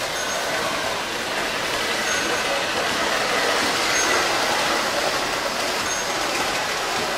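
Lionel O-gauge model train running on three-rail track: a steady rolling rumble of wheels and motor, louder in the middle as the cars pass close by.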